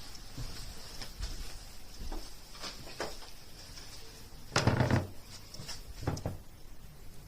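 A few scattered knocks and thumps, the loudest and longest about four and a half seconds in and another about six seconds in.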